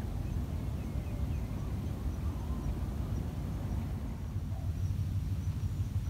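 Wind buffeting the microphone as a steady low rumble, with a few faint bird chirps above it.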